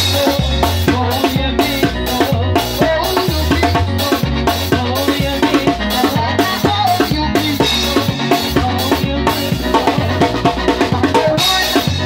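Live band playing a steady, driving drum-kit beat with bass notes underneath.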